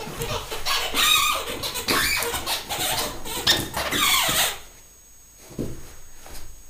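Squeaky toy being squeezed and chewed by a dog, giving a rapid run of wavering squeaks with rubbing and scraping, which stops about four and a half seconds in.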